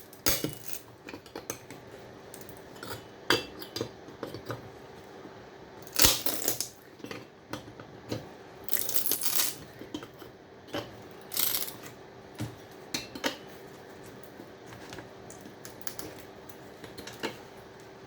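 Irregular clicks, clinks and short scrapes of metal and board: MOSFET transistors being worked at and broken off a power-supply circuit board by hand, a hard job.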